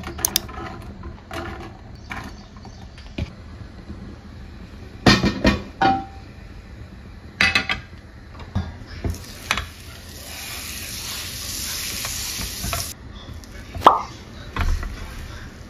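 Kitchen cookware sounds at a gas stove: scattered knocks and clinks of metal pans and utensils, with a steady hiss for about four seconds past the middle that starts and stops abruptly.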